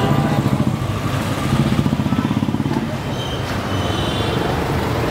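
Street traffic with a small vehicle engine running close by, throbbing in a fast, even beat that is strongest in two stretches during the first three seconds.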